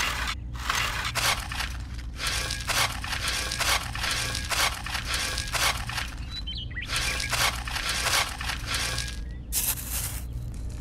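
Miniature metal trowel scraping and digging into dried mud, a run of short gritty scrapes with crunching as the crust breaks into clods.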